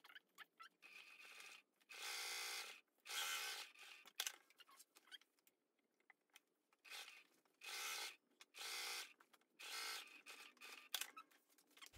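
Electric sewing machine stitching in several short runs of under a second each, basting a long stitch through layered canvas, with light clicks and fabric handling between the runs.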